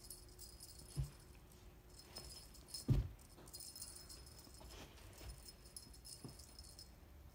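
Light metallic jingling on and off while a puppy and cat play at a dangled fishing-pole toy, with two dull thumps about one and three seconds in.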